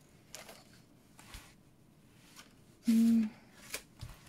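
Card stock and paper rustling and sliding on a craft mat as the card is handled. About three seconds in comes a short hummed "hm" from a woman's voice, followed by a light click and a soft tap near the end.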